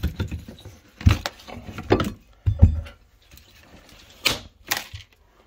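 Pinned timber skirting board being prised off a wall with a lever bar and pulled away by hand: about five irregular sharp cracks and knocks as it comes loose.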